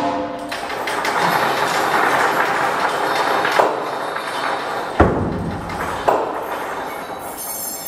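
Live metal percussion: a dense, sustained rumbling wash of metallic sound with a few sharp strikes, the loudest about five seconds in.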